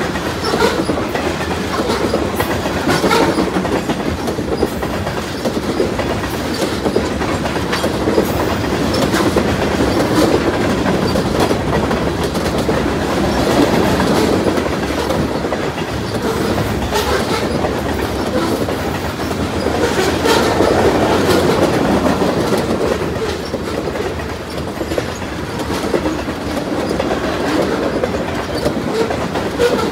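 Freight train of covered hopper cars and tank cars rolling past, a steady rumble with steel wheels clicking and clanking over the rail joints.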